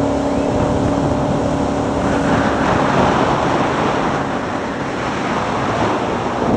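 Jet boat under way: its engine runs with a steady hum, and about two seconds in a rush of water spray and wind noise swells up and covers it.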